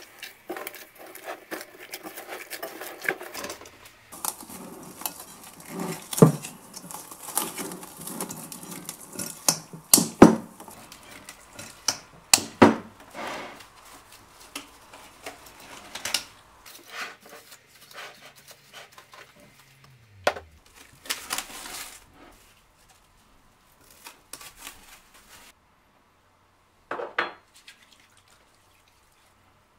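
Hand squeezing and mixing sticky bread dough in a glass bowl, with repeated knocks and clicks against the glass, then plastic cling wrap crinkling as it is stretched over the bowl.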